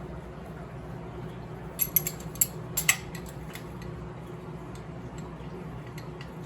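Several light metallic clinks and taps of hand tools and a bolt against motorcycle parts during disassembly, bunched together about two to three and a half seconds in, over a steady low hum.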